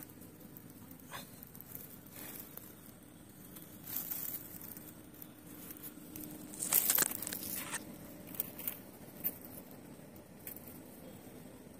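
Rustling and crinkling handling noises with scattered clicks, loudest in a short burst about seven seconds in, over a faint steady hum.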